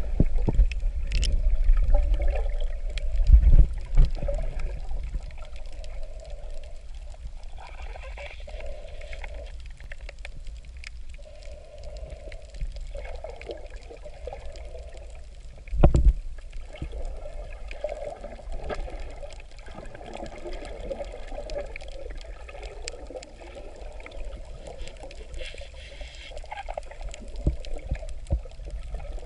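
Underwater sound picked up by a camera in its waterproof housing: muffled swirling and gurgling water with a deep rumble, heaviest in the first few seconds. A sharp low thump comes about sixteen seconds in.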